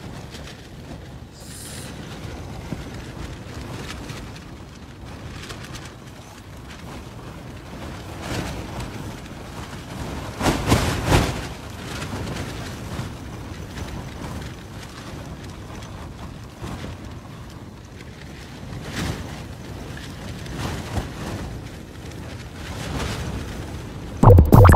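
Wind buffeting a mountaineering tent: a steady rush with stronger gusts that shake the tent fabric, loudest about ten seconds in and again near the end.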